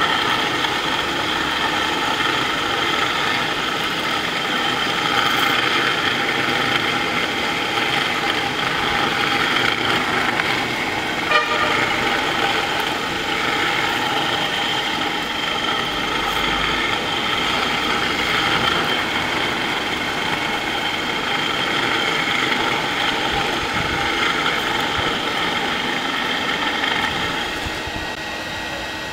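DFG-250E edge floor grinder running, its motor spinning the grinding disc along a concrete edge, together with the dust extractor drawing through its hose: a steady mechanical whine made of several steady tones. The level drops a little near the end.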